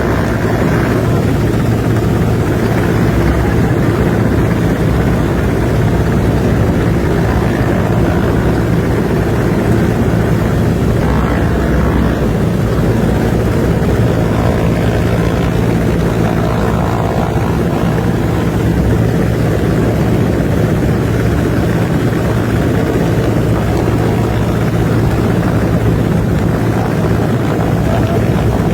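A loud, steady engine drone with a low hum.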